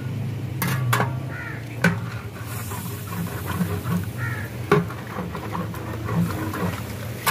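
A large flat metal spatula stirring korma in a big metal deg, with sharp clinks of metal against the pot several times and slopping of the gravy.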